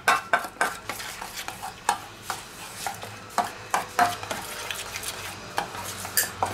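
A spoon stirring a thick, creamy dip in a stainless steel bowl, with irregular clinks and scrapes of spoon against the bowl.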